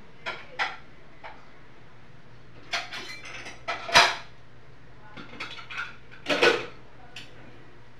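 Plates, bowls and utensils clinking and knocking: a few scattered clatters, the loudest about four seconds in and another just past six seconds.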